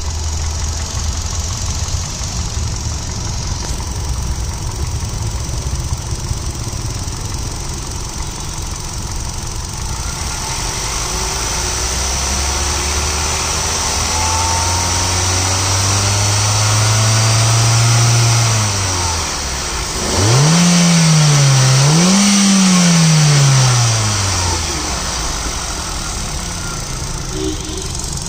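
Hyundai i20's four-cylinder petrol engine idling, heard from the open engine bay. About halfway through it is slowly revved up and held, let fall back, then blipped twice in quick succession before settling back to idle.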